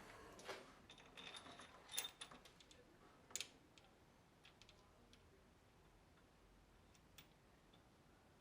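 Near silence broken by a few faint, light metallic clicks and taps of hand tools and engine parts being handled, mostly in the first three and a half seconds, with one more click about seven seconds in.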